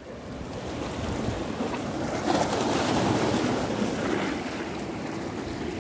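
Sea waves washing against the rocks of a jetty: a steady rush that swells for a couple of seconds in the middle and then eases off.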